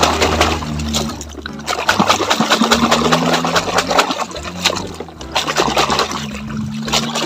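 Muddy water splashing and sloshing in quick, uneven strokes as a plastic toy dump truck is pushed back and forth through it by hand to wash the mud off.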